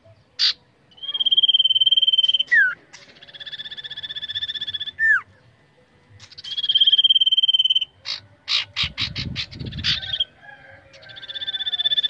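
Common iora (cipoh) singing: long, finely trilled whistled notes, each held for about a second and a half and ending in a quick downward slur, repeated four times with pauses. About nine seconds in there is a quick run of sharp clicks.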